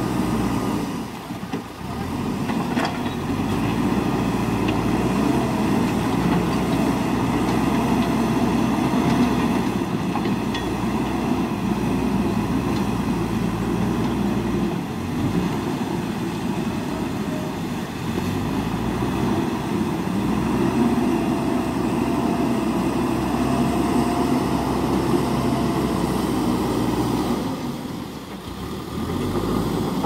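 JCB backhoe loader's diesel engine running steadily as the machine works its front bucket in a flooded river, over the rush of fast-flowing water. The sound dips briefly about two seconds in and again near the end.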